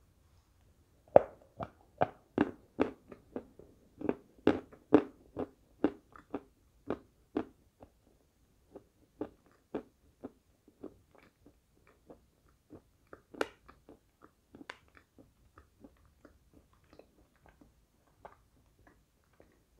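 Dry meringue crunched and chewed close to a lapel microphone: a fast run of loud, crisp crunches for the first several seconds, thinning to sparser, softer chewing crunches, with one more loud crunch about halfway through.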